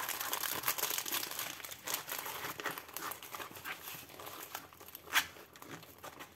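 Plastic protective film on a diamond-painting canvas crinkling and rustling as it is rolled up by hand, with one sharp crackle about five seconds in.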